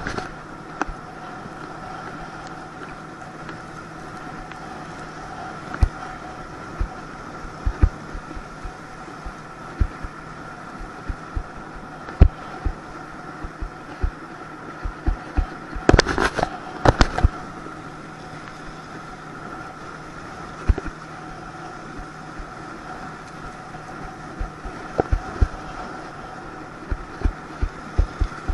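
Inflatable towable tube bouncing over the water behind a towboat: a steady rush with a constant hum, broken by repeated dull thumps as the tube hits the waves, and a cluster of hard knocks about halfway through.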